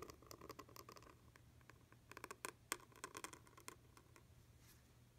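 Faint scratching and ticking of a pointed metal calligraphy nib dragging across paper as a descending stem loop is drawn, with a denser run of sharper ticks about two to four seconds in.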